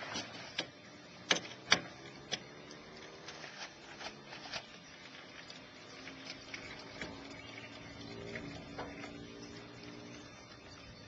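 Clicks and sharp knocks from a tray-top camper's hinged hard-floor panel and metal frame being folded closed by hand, the loudest two knocks close together early on. The sound runs at double speed.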